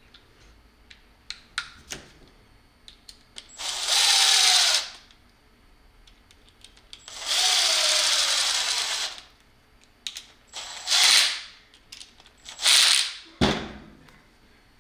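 Impact drill with a Phillips bit driving screws in four short runs, the longest about two seconds. The motor's pitch falls as each run ends. Small clicks and handling knocks come between the runs.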